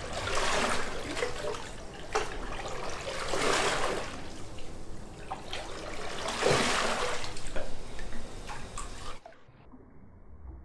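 Canoe paddle strokes in a paddling tank: about four strokes, each with the blade planted and pulled through the water in a rushing splash, with the water sloshing between them. The sound drops away sharply about nine seconds in, leaving only a faint, dull wash.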